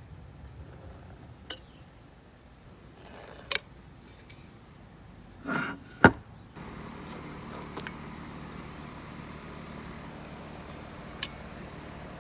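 Woodworking hand tools being handled and struck: a handful of sharp, scattered knocks and clinks, the loudest a little after halfway, just after a short scrape. A steady low hum comes in right after the loudest knock.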